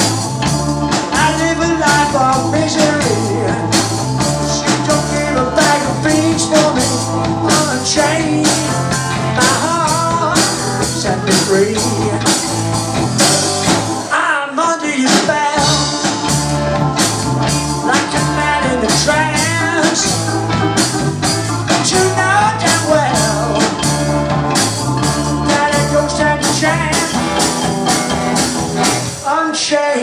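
Live blues-rock band playing: drums, bass guitar, Hammond organ and electric guitar, with singing at times. The low end drops out briefly about halfway through.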